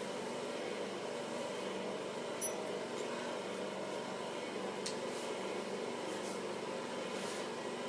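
A steady mechanical hum fills the room. A single sharp clink comes about two and a half seconds in, and a fainter tick follows a couple of seconds later.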